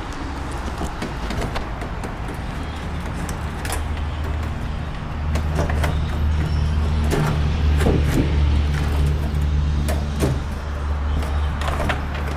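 A low, steady electric motor hum that grows louder about halfway through, with scattered clicks and knocks over it.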